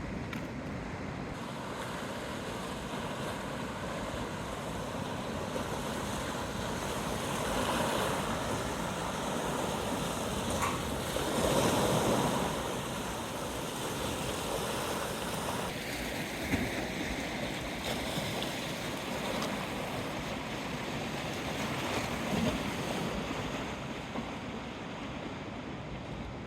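Strong gusty wind rushing over the microphone, swelling in a big gust about halfway through, with a couple of brief knocks later on.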